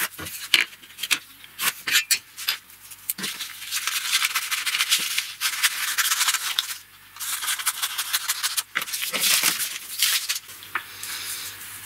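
A few sharp knocks as a steel ruler and square are handled on a wooden bench, then scissors cutting through a folded sheet of paper: crisp crackling snips and rustling for several seconds, with a brief pause about seven seconds in.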